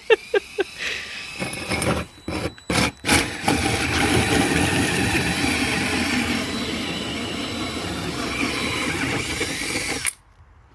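Power drill driving a large hole saw through a car's bumper: a couple of short bursts, then a steady cut for about seven seconds that stops abruptly as the saw goes through.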